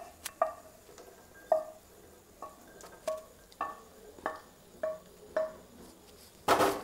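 A spatula scraping and knocking roasted cashews and almonds across a ceramic-coated frying pan to tip them out: a run of about ten short knocks, roughly two a second, each with a brief ring from the pan, then a louder noisy burst near the end.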